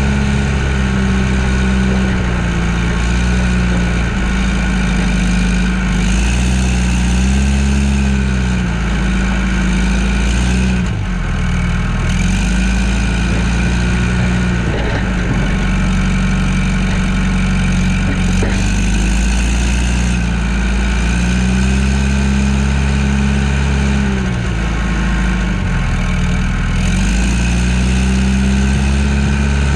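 John Deere 310G backhoe's diesel engine running while plowing snow, its pitch dipping and climbing back several times as the engine speed drops and recovers.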